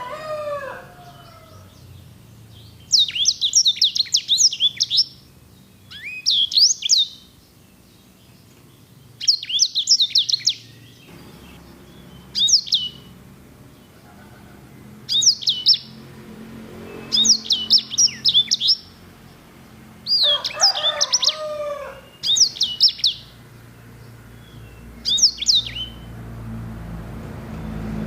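Black-throated canary (sanger) singing in short phrases of rapid high trills and sweeping whistles, about nine phrases each a second or two long, separated by brief pauses.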